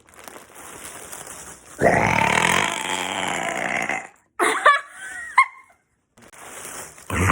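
A long burp of about two seconds from someone who has swallowed helium, followed a couple of seconds later by a few short squeaky sounds that glide in pitch; another loud burst begins near the end.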